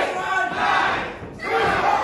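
Small crowd of wrestling spectators shouting and yelling in surges, several raised voices at once.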